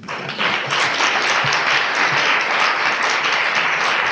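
Audience applauding, building up over the first half second and then holding steady.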